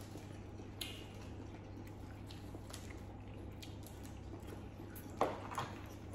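Quiet eating and shell-handling sounds: cooked crab shells pulled apart and cracked by hand, with scattered small clicks and a couple of louder cracks about five seconds in, over a low steady hum.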